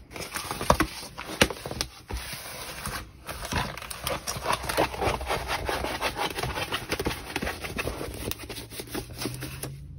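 A rolled diamond-painting canvas with its plastic cover film being turned over and rolled backwards by hand. It gives a continuous rustle and crinkle full of small crackles, with two short pauses a couple of seconds in.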